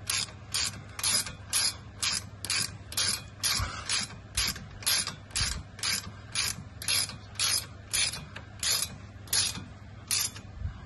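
Hand socket ratchet clicking in quick back-and-forth strokes, about two a second, as it runs a bolt down; the strokes stop near the end.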